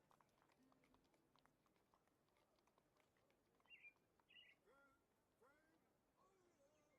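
Near silence, with faint bird chirps and short gliding calls about halfway through.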